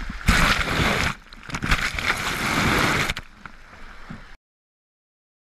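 Sea water sloshing and splashing close to the microphone in two loud surges, the second starting about a second and a half in. The sound cuts off abruptly into silence near the end.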